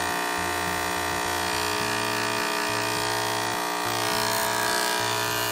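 Small 12 V DC motor of a diaphragm spray pump running with its bearing mounted off-centre, a steady buzz. The wobbling bearing makes the vibration that works the pump's diaphragm up and down.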